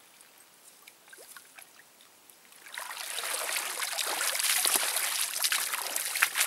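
Water streaming and splashing off a mesh keepnet full of fish as it is hauled out of the river, along with splashes of wading feet. It starts suddenly about three seconds in.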